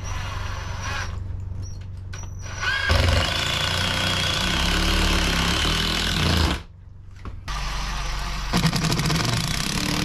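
Power driver driving screws into a wooden door header: two loud runs of a few seconds with a short break between them, the second with a rapid rattle near the end.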